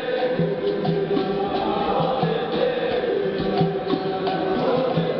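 Capoeira roda music: berimbaus playing with the crowd clapping a steady beat and singing together in chorus.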